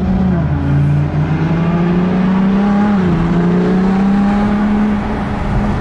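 Ferrari engine heard from inside the cabin while driving: a steady drone whose pitch dips about three seconds in and then climbs slowly.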